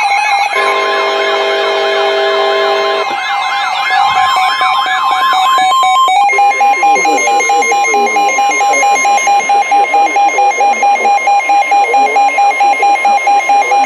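Emergency alert tones from weather radios and EAS receivers sounding at once: warbling siren-like tones over steady tones. From about six seconds in, a steady tone beeps rapidly, about four times a second.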